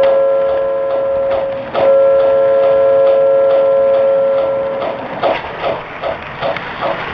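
O scale model train's whistle, a chord of several steady tones, breaking off briefly a little under two seconds in and sounding again until about five seconds in. Under it the wheels click rhythmically over the track joints, about two to three clicks a second, and the clicking carries on alone after the whistle stops.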